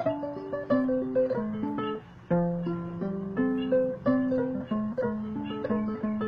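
Burmese arched harp (saung) playing a melody of single plucked notes and short runs, each note ringing and fading, with a brief break about two seconds in.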